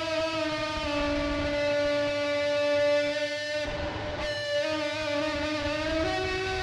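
Instrumental music of long, sustained held notes rich in overtones, sliding slightly in pitch and stepping up to a new note near the end, with a brief noisy swell about four seconds in.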